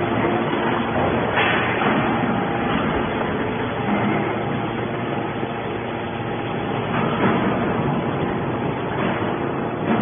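Y81 hydraulic metal baler running: a steady, loud mechanical drone from its hydraulic power unit, with a few knocks as the ram pushes a compressed bale of metal shavings out of the chamber.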